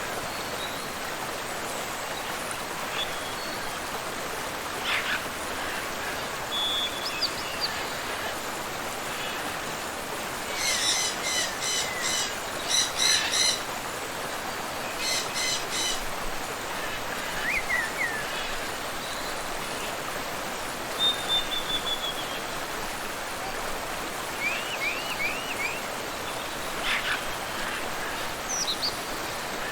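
Steady rush of a waterfall and river, with birds calling over it: scattered short chirps and whistles, and a loud run of repeated harsh calls around the middle.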